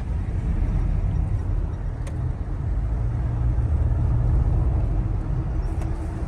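Steady low rumble of a car driving along a road, with one short click about two seconds in.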